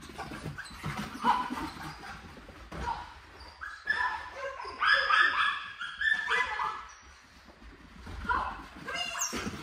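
Dog whining and yipping in short, broken bursts, loudest about halfway through.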